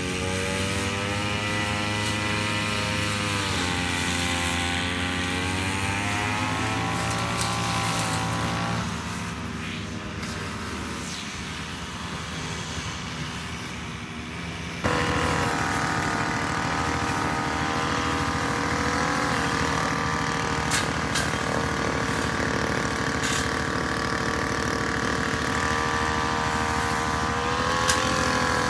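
Two-stroke backpack brush cutter engines running at cutting speed, the pitch wavering up and down. The sound drops in level about nine seconds in, then jumps back up suddenly about fifteen seconds in, with a few sharp ticks in the second half.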